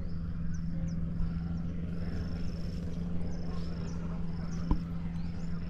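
Outdoor ambience: a steady low hum under short, high-pitched chirps that repeat roughly once a second, with a single sharp tap about three-quarters of the way through.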